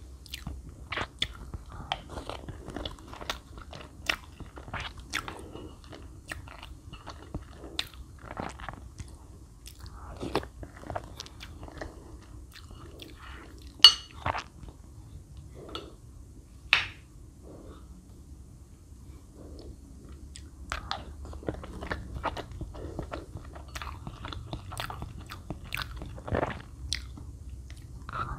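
Close-miked chewing and crunchy biting of milk-soaked chocolate cake and chocolate pieces, as irregular short crackles and clicks, with two sharper, louder clicks about 14 and 17 seconds in.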